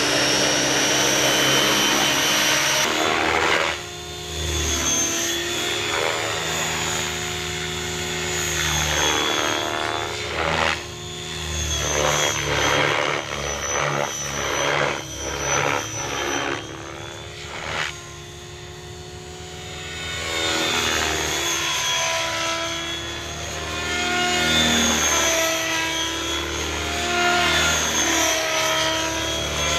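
Align T-Rex 550 electric RC helicopter's rotor and motor whining, first spinning on the ground and then in aerobatic flight. The whine bends up and down in pitch and swells and fades in loudness as the helicopter climbs, flips and passes, with a sudden change about three seconds in.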